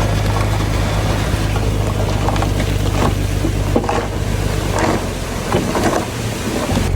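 Heavy diesel earthmoving machinery running with a steady low engine hum, along with scattered knocks and scrapes of soil and metal. The hum drops off about five seconds in.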